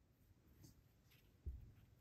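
Near silence: quiet room tone with a few faint ticks and one soft, low thump about one and a half seconds in.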